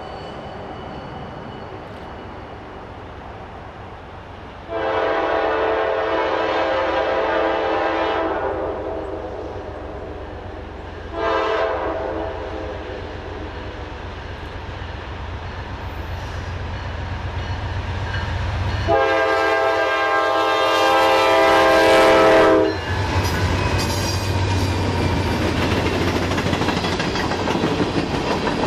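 Norfolk Southern freight locomotive sounding its air horn as it approaches: a long blast about five seconds in, a short one around eleven seconds, and another long blast near twenty seconds as it draws level, over the train's growing rumble. The locomotives and a string of hopper cars then run past close by with a loud, steady rolling noise.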